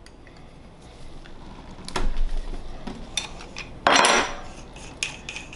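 Metal clicks and clinks of a steel spanner wrench and suppressor parts being handled on a wooden workbench, with a louder clatter about four seconds in as the wrench is set down on the bench.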